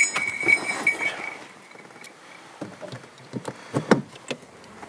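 A car's warning chime beeps quickly in the cabin, with knocks and rustling as someone settles into the driver's seat. The beeping stops about a second and a half in. A click and a few sharp knocks follow, the loudest about four seconds in.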